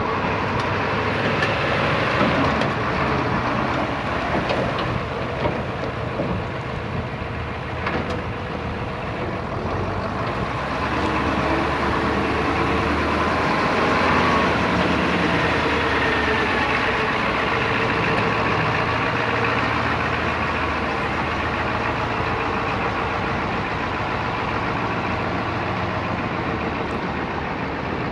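Ford crane truck's engine running steadily.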